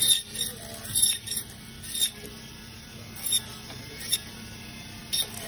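Band saw running with a steady low hum while its blade cuts through frozen fish, giving short high-pitched squeals and rasps at irregular intervals, about one every second, as each piece is pushed into the blade.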